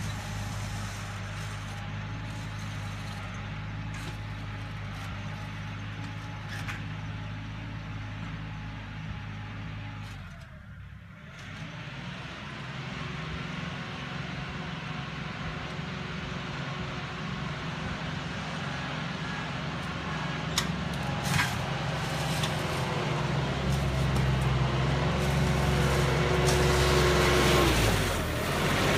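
Kioti NX-series tractor's diesel engine running under load while it pulls a box scraper through spread gravel, growing louder as the tractor approaches and comes alongside near the end.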